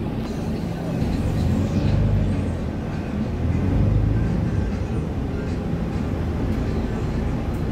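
Cabin noise of a Volvo B8RLE city bus under way: a low engine drone and road rumble, swelling louder twice.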